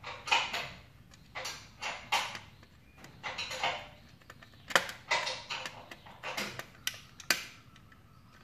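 Screwdriver working the terminal screws of a plastic power-strip socket: a run of short scrapes and rasps, with two sharper clicks about five and seven seconds in.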